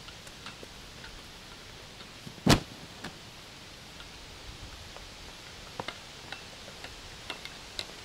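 Scattered light clicks and taps, with one loud sharp knock about two and a half seconds in, over a steady quiet background.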